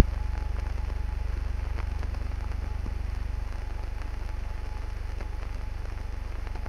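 Steady low electrical hum with faint hiss and crackle, the background noise of an old film transfer, and a single sharp click right at the start.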